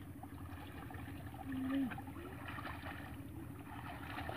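Faint sloshing and trickling of hands groping through shallow muddy water, over a steady low background rumble.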